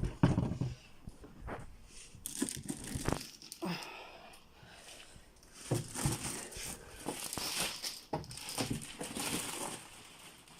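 Packaging being handled: irregular crinkling and rustling, with a few light knocks of items being moved and set down.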